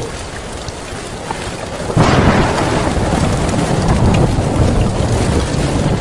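Heavy rain pattering steadily on a tin roof. About two seconds in, a thunderclap breaks suddenly and rolls on as a loud, deep rumble under the rain.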